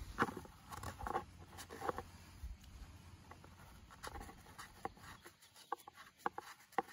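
Paper towel rubbing and wiping the plastic blade plate of an AL-KO Robolinho robotic lawnmower clean of dirt, in short, irregular scrubbing strokes. A few light clicks come in the second half.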